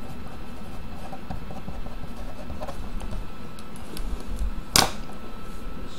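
Steady low background hum with faint scattered ticks, and one sharp click a little before the end.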